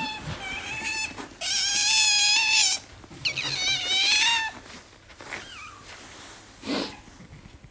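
Otter giving high, wavering whining calls while being stroked: a long loud one about a second and a half in, then a second one that arches up and falls away, and a brief chirp. A short noisy puff comes near the end.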